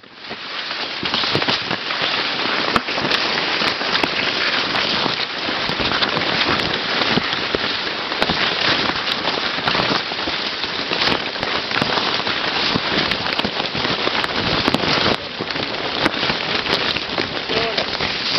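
Corn leaves rustling, crackling and slapping against the camera and the runner while pushing fast through rows of maize. It is a continuous dense rustle full of sharp little clicks, starting abruptly at the beginning.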